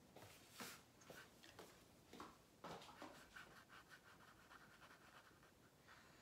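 Colored pencil scratching on paper in short back-and-forth strokes, faint, coming quickest in a run a few seconds in.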